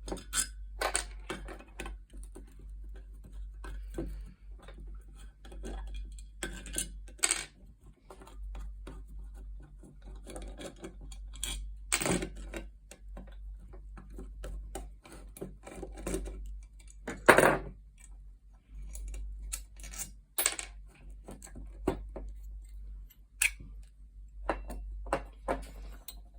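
Irregular metallic clicks, clinks and knocks from an old Godrej two-lever cabinet lock being opened up and its metal parts handled. The loudest knock comes about two-thirds of the way through, over a steady low hum.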